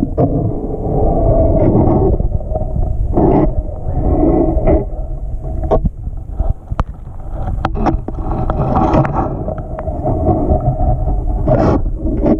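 Muffled rumble and sloshing of pond water heard through a GoPro held underwater, with scattered knocks and bumps against the camera housing.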